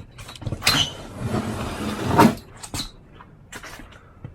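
Knocks and a scraping rustle of things being shifted by hand, with the loudest knock a little over two seconds in, then a few light clicks.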